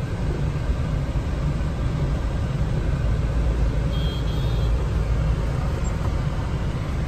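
Steady low rumble of a car's engine and road noise heard from inside the cabin while crawling in a traffic jam, with a brief faint high tone about four seconds in.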